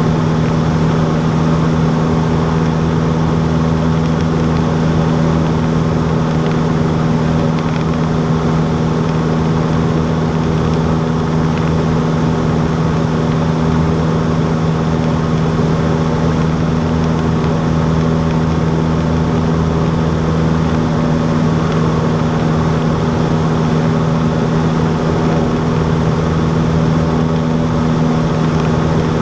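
Cessna 152's four-cylinder Lycoming engine and propeller droning steadily, at a constant power setting, with no change in pitch.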